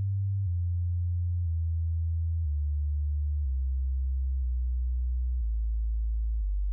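A deep, pure electronic sine tone that steps down in pitch about once a second, like a descending test-tone sweep.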